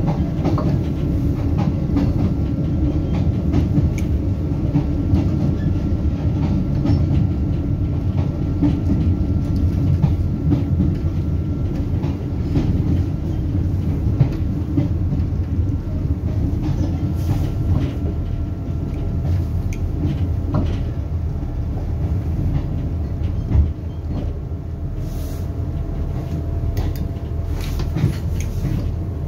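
Diesel multiple-unit train heard from inside the passenger carriage while running at speed: a steady rumble of wheels on rail, with clicks over rail joints and a faint steady whine. It grows a little quieter near the end as the train slows.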